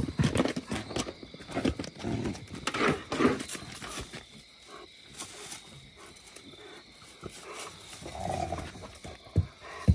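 Animal calls: a run of short, rough bursts over the first four seconds, loudest about three seconds in, then quieter.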